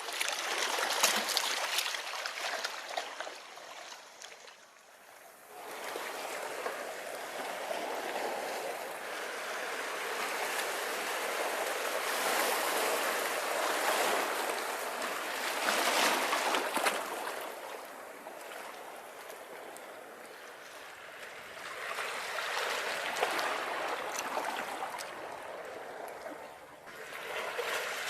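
Ocean waves breaking on a beach. The surf swells and falls back in several surges a few seconds apart, with a long, strong swell in the middle.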